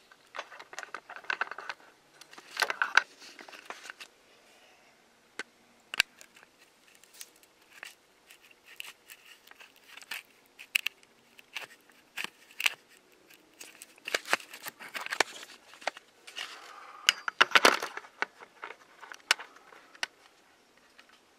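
Scattered clicks, taps and short scrapes of handling as a camcorder is held against a metal adapter ring clamped in a lathe chuck to check the fit, with louder bunches of clatter a few times.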